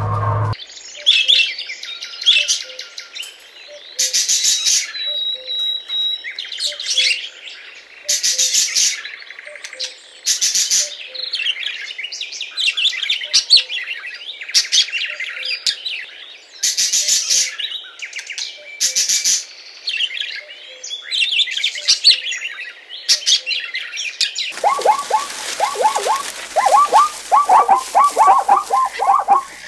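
Alexandrine parakeet calling: chirps broken by loud, harsh screeches every second or two. About 24 seconds in, this gives way to a rapid run of short chattering calls over a steady hiss.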